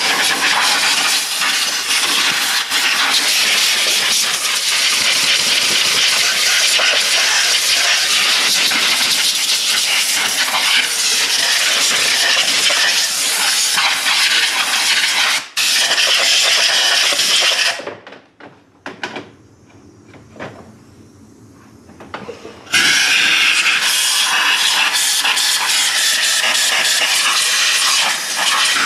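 Compressed-air blow gun hissing loudly as it blasts built-up debris off a VW VR6 valve cover and blows oil out of the spark plug tubes. The long blast stops about two-thirds of the way through, with a few short puffs, then a second long blast starts.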